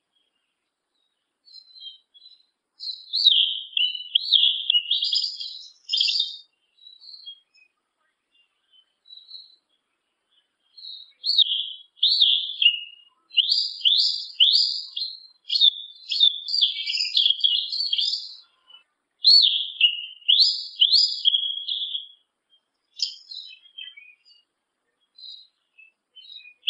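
Yellow-legged thrush (sabiá-una) singing: quick, high warbled phrases of many varied notes, a short bout about three seconds in and a long run from about eleven to twenty-two seconds, with scattered single thin notes between.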